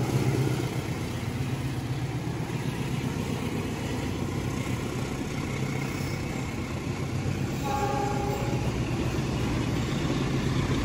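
A train running by with a steady low rumble, and a short blast of the locomotive's horn chord about eight seconds in.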